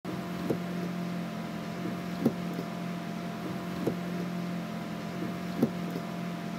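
Minivan windshield wipers sweeping, a short thump about every second and three-quarters over the steady hum of the running van, heard from inside the cabin.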